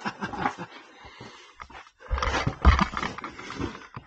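A person breathing hard, near to panting, while scrambling through a tight rock crawlway, with scuffs and knocks of body and gear against the rock.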